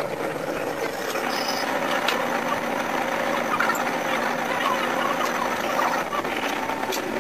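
Sanriku Railway 36-200 diesel railcar's engine and cab noise played back five times fast, a busy, even mechanical chatter, as the car creeps slowly over a viaduct.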